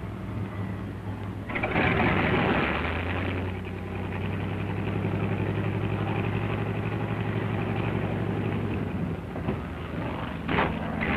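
Propeller aircraft's piston engine running, a steady, fast-pulsing drone. A loud rush of noise comes in about a second and a half in and lasts a couple of seconds, the loudest part, with two shorter rushes near the end.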